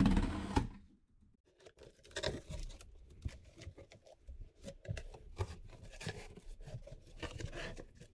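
Box cutter slicing through packing tape on a cardboard shipping box: a loud rasping tear that stops just under a second in. After a short pause come scattered rustles, scrapes and knocks as the cardboard flaps are pulled open.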